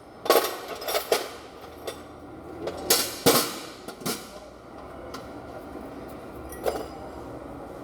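Irregular sharp metallic clanks and knocks, some ringing briefly: a cluster in the first four seconds and one more near seven seconds, typical of metal tools or parts being handled.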